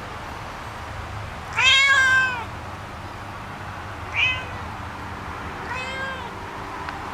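Domestic cat meowing three times: a long, loud meow about one and a half seconds in, whose pitch rises and then falls, a short one around four seconds, and another near six seconds.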